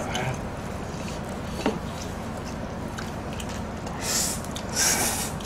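Noodles being slurped from a bowl held to the mouth, with two loud, hissy slurps near the end and a short click before them.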